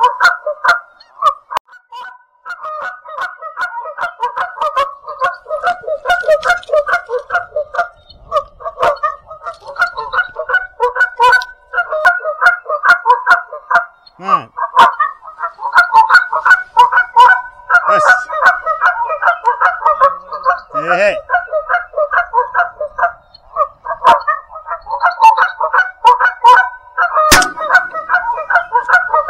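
A flock of geese honking in a dense, nearly continuous chorus, with only short breaks, and occasional sharp clicks.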